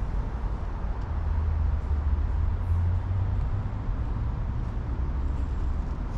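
Outdoor residential-street ambience during a walk: a steady low rumble under an even background hiss, with a few faint ticks.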